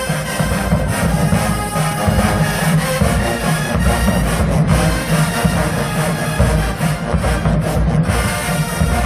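HBCU marching band playing loud, with brass horns over a heavy low end of tubas and drums.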